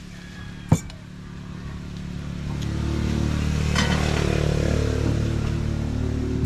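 A motor vehicle's engine grows louder over about two seconds and then keeps running steadily. A single sharp clink sounds just under a second in, before the engine comes up.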